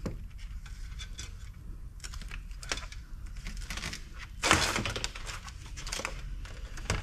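Diagonal wire cutters snipping insulated electrical wires off a metal electronics box, with scattered clicks and wire rustling. About four and a half seconds in, the loudest sound is a short clatter and rustle as the cut bundle of wires is laid down on the stainless steel table.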